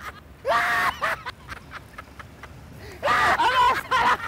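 Two men laughing hysterically in loud, high-pitched, shrieking bursts, one about half a second in and another about three seconds in, with quieter gasping gaps between.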